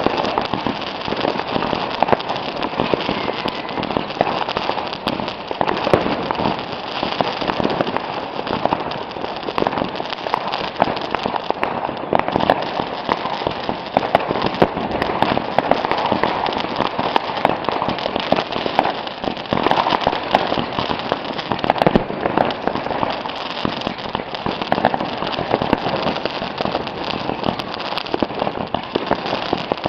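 Consumer fireworks going off in a dense, continuous crackle of rapid small bangs, without a break.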